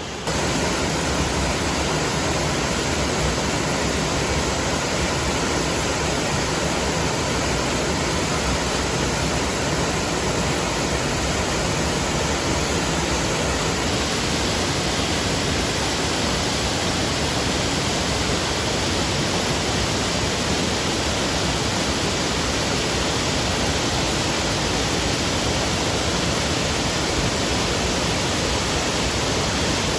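Waterfall water rushing in a loud, steady, even wash of noise that cuts in abruptly just after the start.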